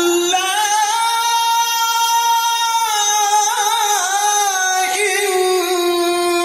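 A male qari chanting Qur'an recitation (tilawah) in one long melismatic phrase: a sustained high note held steady, with ornamented turns and wavers about halfway through.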